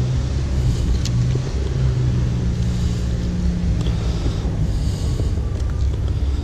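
A steady low engine hum with a rumble underneath, its pitch shifting slightly now and then; a faint click about a second in.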